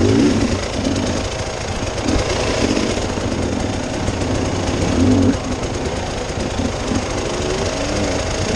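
Off-road vehicle driving over a rough, rocky track: the engine runs under load while the vehicle rattles and jolts steadily, with the level swelling briefly a few times.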